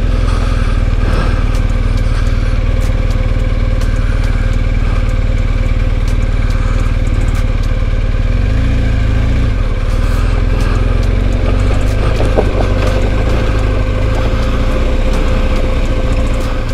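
BMW R1250 GS Adventure's boxer-twin engine running at low speed on a rocky dirt trail, with scattered clicks and knocks throughout. The engine note shifts about halfway through.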